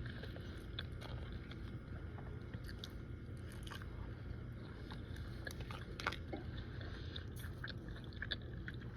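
A person chewing and biting food close to the microphone, with small crunches and mouth clicks scattered through, over a faint steady low hum.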